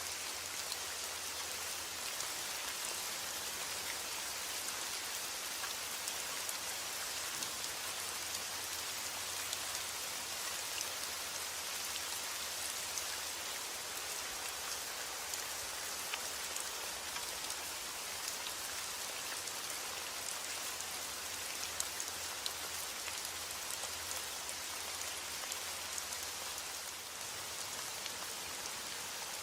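Steady rain falling, an even hiss with scattered individual drops ticking, and no thunder.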